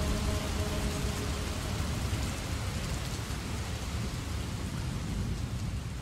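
Steady heavy rain falling on a surface, with a low rumble underneath. The last held note of the call to prayer dies away in the first second.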